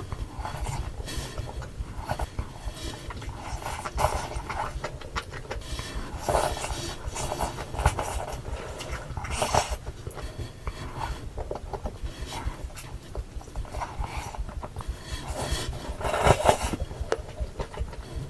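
Close-miked eating sounds of malatang being eaten fast: a continuous run of wet chewing and mouth clicks, with a few louder slurps about six, nine and sixteen seconds in.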